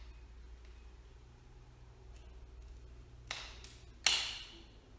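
Wire cutters snipping through the old loom wires: a sharp snip a little after three seconds, then a louder one about a second later.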